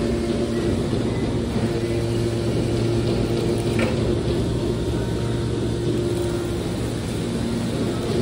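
Hydraulic scrap metal baler running: a steady low hum from its hydraulic power unit as the ram pushes out a compressed bale of metal shavings, with a brief sharper sound about four seconds in.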